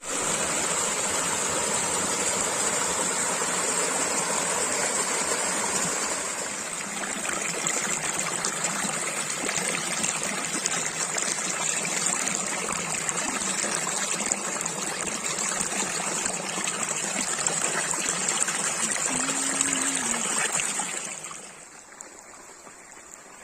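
Water of a small stream or irrigation channel flowing and rushing steadily, then dropping off sharply near the end.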